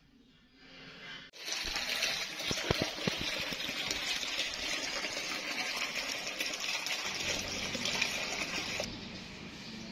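A steady rushing noise that starts suddenly about a second in, with a few low thumps in its first seconds, and drops to a duller, quieter hiss near the end.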